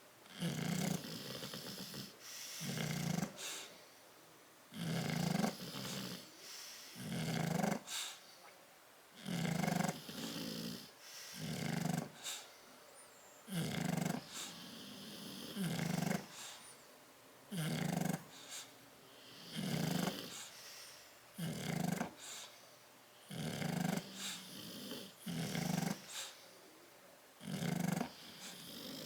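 Sleeping bulldog snoring in a steady rhythm, one snore about every two seconds.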